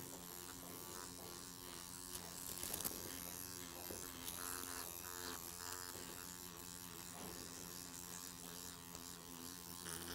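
Electric microneedling pen buzzing faintly and steadily as its needle cartridge works over the skin of the neck.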